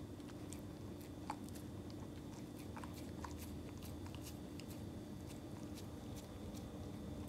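A Samoyed mouthing and licking at corn kernels in an open hand: faint, scattered small clicks of lips and tongue over a low steady hum.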